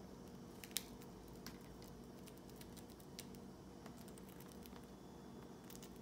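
Scattered sharp clicks and cracks of cockatiels pecking at and cracking hard roasted chickpeas, with one louder crack a little under a second in, over a faint steady hum.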